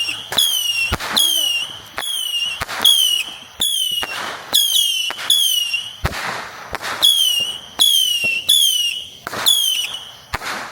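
Consumer firework shooting a rapid string of whistling shots, about two a second. Each is a short, high whistle that slides down a little, then a sharp crack.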